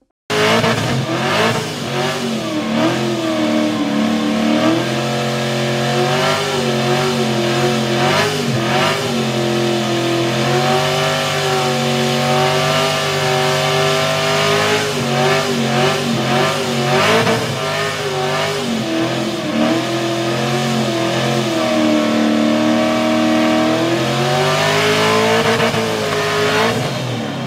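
Race car's engine revving hard through a long burnout, held high with its pitch wavering up and down as the throttle is worked, while the rear tyre spins and smokes on the pavement.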